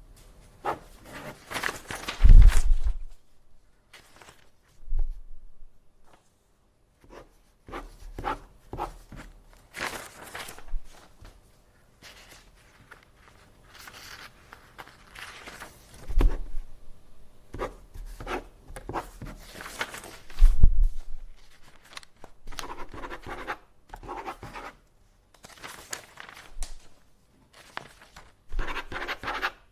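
Paper being handled on a desk: irregular rustles, scrapes and light taps, with three heavier thumps, one a couple of seconds in and two past the middle.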